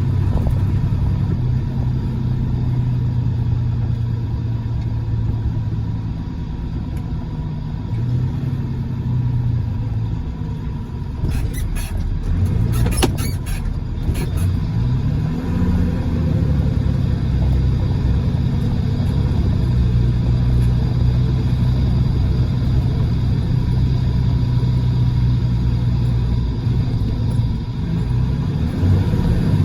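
Car engine running steadily, its pitch dipping and rising a few times. A short cluster of clicks comes about halfway through.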